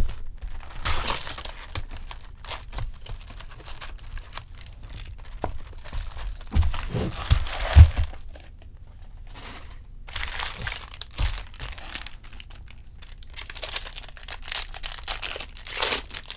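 Plastic shrink wrap and card-pack wrappers crinkling and tearing as a sealed box of trading cards is unwrapped and its packs handled, with a few dull thumps of the cardboard box, the loudest about eight seconds in.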